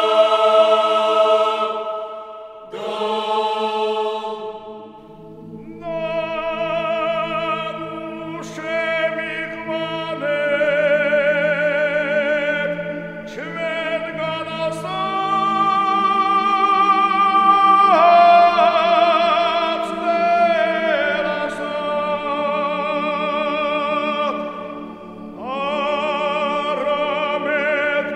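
Background music: voices singing long held notes with vibrato, changing pitch every few seconds.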